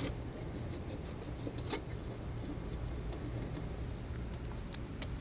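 A few light clicks and taps from a Carter carburetor being handled on the bench, over a low steady hum.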